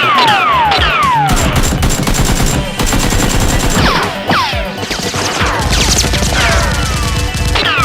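Bursts of rapid gunfire sound effects over background music, with several quick descending whistles cutting through.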